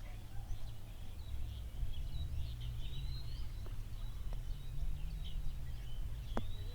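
Birds chirping over a steady low rumble of wind on the microphone, with one sharp click near the end.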